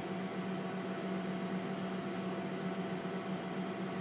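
Steady hum and whir of a running TRS-80 Model 16B computer, mostly its cooling fan, with a low, even drone that does not change.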